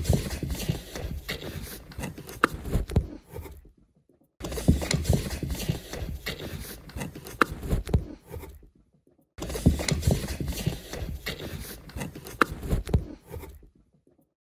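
Cardboard box rustling and scraping with sharp crinkles and knocks as a cat squeezes through it. The same stretch of about four seconds plays three times, each time cut off abruptly by a short silence.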